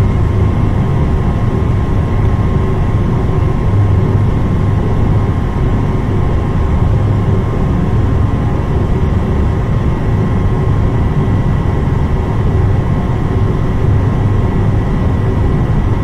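Industrial furnace's North American Tempest gas burners firing at high fire with the combustion air blower running: a loud, steady rumble with a faint steady high whine over it.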